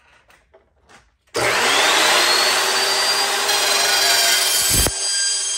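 Evolution metal-cutting chop saw starting about a second in, its motor whine rising to speed, then the blade cutting through steel tubing with a loud, harsh noise. A heavy thump comes near the end and the saw keeps running.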